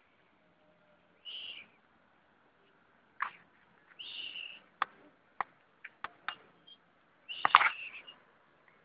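A mouse squeaking three times in short, high-pitched cries, the last the loudest, as a cat corners it, with sharp clicks and knocks in between.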